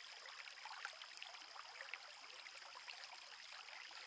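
Small, shallow creek trickling faintly over stones, a soft steady water hiss with many tiny ticks.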